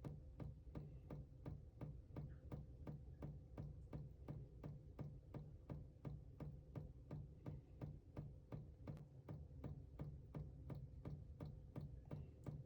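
Faint, even ticking, about three clicks a second, over a low hum.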